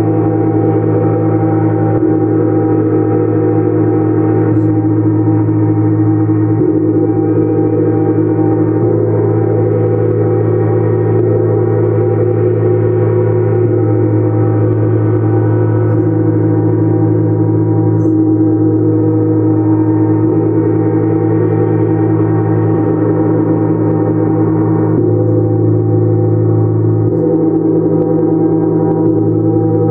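Gongs played continuously: a dense, steady wash of deep ringing tones, with no single strike standing out. The blend of tones shifts every few seconds, most noticeably about 25 seconds in.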